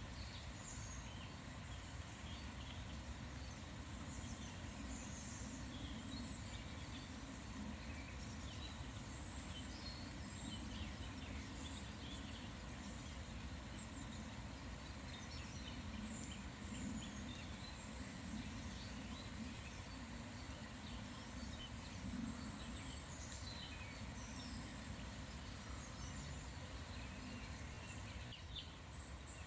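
Small birds chirping and calling, short high notes scattered throughout, over a steady low background rumble.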